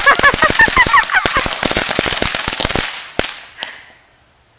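Consumer firework crackling: a fast run of small bangs with high chirping whistles over it in the first second and a half. The crackling stops about three seconds in, followed by two last pops.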